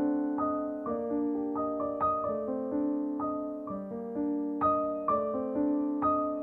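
Background piano music: a slow melody of single notes, roughly two a second, each ringing on after it is struck.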